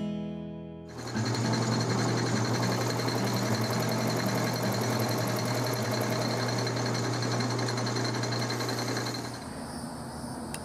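Metal lathe set up for milling, spinning a four-flute end mill that cuts flats on a small bolt head held in a fixture: a steady machine hum with the noise of the cut. It stops about nine seconds in, leaving a quieter background.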